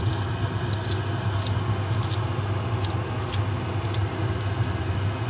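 Knife chopping parsley on a cutting board: irregular sharp taps, roughly two a second, over a steady low hum.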